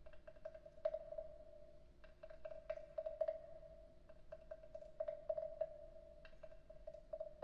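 Light irregular taps and clicks on a wooden frog percussion instrument, several a second, over a steady mid-pitched ringing tone that swells and fades.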